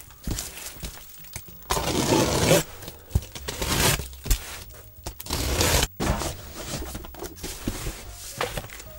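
Plastic stretch wrap and packing tape being slit with a box cutter and torn open on a cardboard box: three loud tearing bursts about two, four and five and a half seconds in, with plastic crinkling and rustling between.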